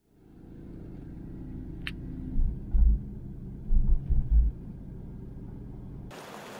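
A car driving, heard from inside the cabin: a steady low road rumble with a single sharp click, then several heavy low thumps a few seconds in. Near the end it cuts suddenly to a steady hiss.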